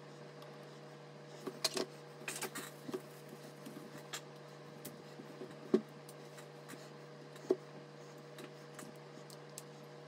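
Small clicks, knocks and light scrapes of PC parts being handled: a thermal paste spreader on the CPU, then an Arctic tower CPU cooler lifted and set onto the motherboard. There is a cluster of clicks about two seconds in, and the loudest knocks come a little before six seconds and about a second and a half later, over a steady electrical hum.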